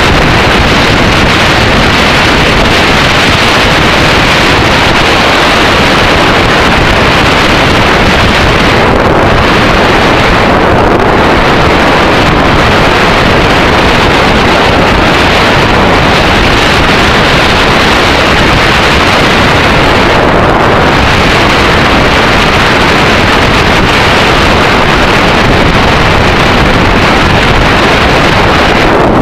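Steady, loud wind noise rushing over the microphone of a camera on a riding Yamaha XT600E motorcycle, with the bike's single-cylinder engine and road noise buried underneath. The hiss dips briefly a few times.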